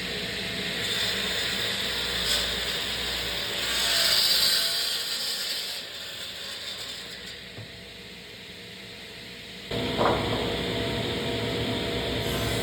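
Power saw cutting solid mahogany: the cut swells about four seconds in and then eases off. Near the end a louder, steady running sound starts abruptly.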